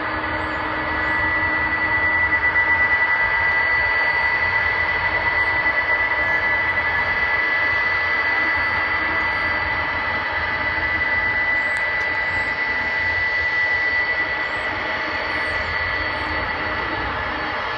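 Jet engines of a taxiing three-engine cargo airliner running at low thrust: a steady high whine over a broad rush.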